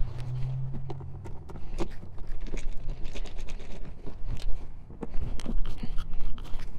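Screwdriver work on the Torx 16 screws that hold a minivan's front door trim panel: irregular small clicks and scrapes of the tool against screw heads and plastic trim.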